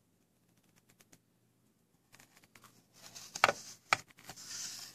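Handling noise from a gloved hand on a coin set's holder and wooden presentation box: faint ticks, then rubbing with two sharp clicks about three and a half and four seconds in, and a scratchy rub near the end.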